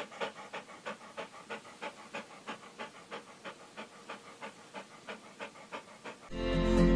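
A Shih Tzu panting rapidly, about four quick breaths a second. Near the end, acoustic guitar music comes in and grows louder.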